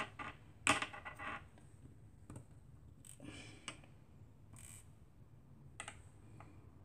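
Light clicks, taps and a short clatter of small plastic craft tools being handled on a cutting mat, with the loudest clatter about a second in. Soft rustles and a single light tap follow.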